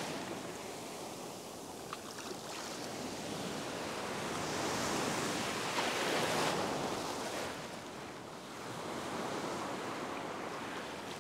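Small surf waves breaking and washing up the beach, the rush of water swelling and fading as each wave comes in.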